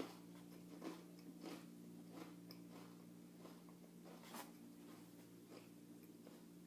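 Faint crunching of a person chewing a thin Oreo sandwich cookie, short crunches about once a second over a steady low hum.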